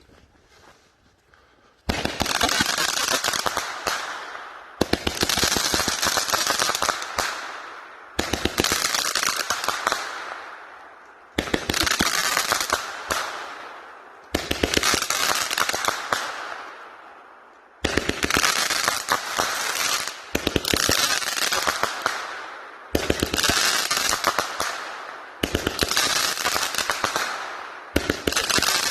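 Brothers Boomer Bang 200-gram firework cake firing its crackling mines: starting about two seconds in, a new volley goes off every few seconds, each a sudden burst of dense crackling that fades out before the next.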